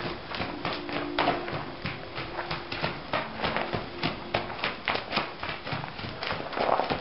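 Hoofbeats of a Quarter Horse mare trotting loose on soft dirt footing: an even rhythm of dull thuds, about two to three a second.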